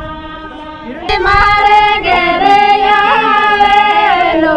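Female singing: a melody of long held notes, growing much louder about a second in.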